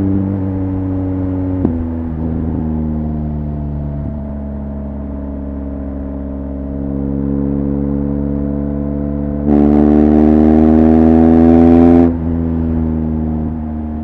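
BMW R1200GS Adventure's boxer-twin engine through an Akrapovic HP exhaust while riding. The note falls off the throttle, with a short click a couple of seconds in, then holds low and steady. About ten seconds in the throttle opens hard: the exhaust gets much louder with the pitch climbing, then cuts back sharply about two seconds later.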